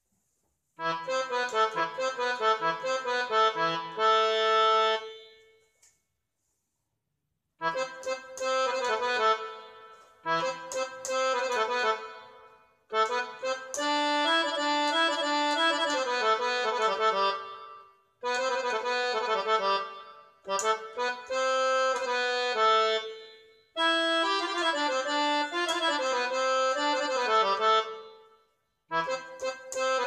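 Electronic keyboard playing a concert accordion voice, as a test of that sound: sustained reedy notes in short phrases, beginning about a second in, with a pause of a second and a half about six seconds in and several shorter breaks after.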